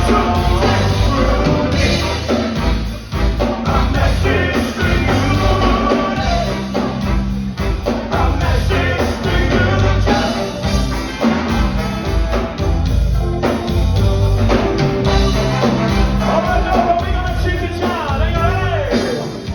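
Live ska band playing at full volume with a sung lead vocal over a steady bass and drum beat.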